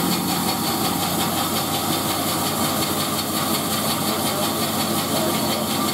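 Grizzly G0513X2 band saw running steadily with no wood being cut, a constant motor and blade hum with a fine, even flutter.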